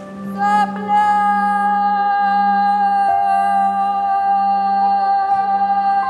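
Background music: one long held, voice-like high note over a steady low drone, stepping slightly down in pitch about three seconds in.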